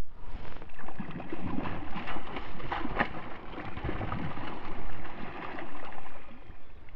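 Hooked bass splashing and thrashing at the water's surface beside the boat, with the sharpest splashes about three seconds in.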